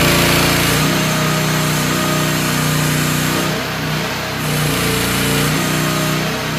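Mini excavator's 420cc Briggs & Stratton single-cylinder petrol engine running steadily while the boom, arm and bucket are worked. The engine note wavers and dips for about a second midway, then steadies again.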